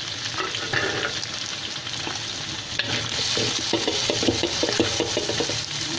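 Sliced onions and egg sizzling in hot oil in a wok. From about halfway through, a spatula stirs and scrapes them around the pan.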